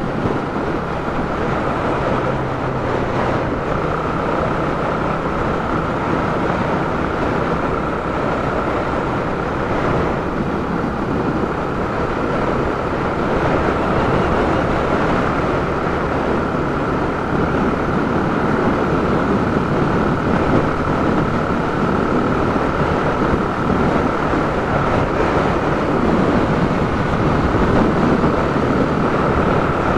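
Yamaha YB125SP's single-cylinder four-stroke engine running steadily at cruising speed, with wind rushing over the camera microphone.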